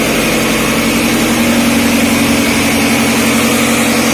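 Marine diesel engine running steadily in a tugboat's engine room: loud, constant machinery noise with a steady hum.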